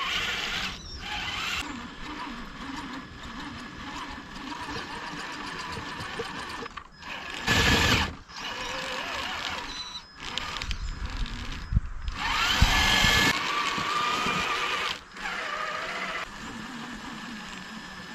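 Electric drive motor and gearbox of a 1/10-scale Traxxas TRX-4 crawler on Traxx tracks, whining in stop-and-start bursts with short pauses. It surges louder about seven and twelve seconds in as the truck tries to climb a wooden teeter-totter ramp, where the tracks struggle to grab.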